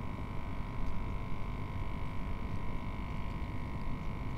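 Steady electric hum from a kayak's bow-mounted trolling motor, a level whine with an overtone, over a low rumble of wind on the microphone.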